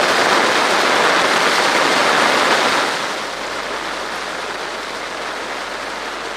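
Heavy rain pouring onto flooded farmland as a steady hiss of rain on standing water. It drops noticeably quieter about three seconds in.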